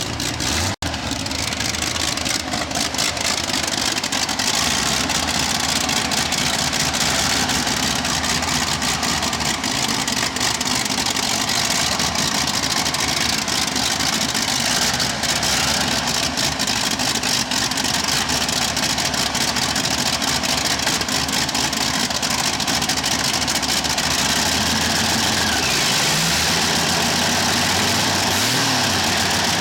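Supercharged V8 racing engine of a tractor-pulling machine idling roughly and loudly, with two short blips of the throttle near the end.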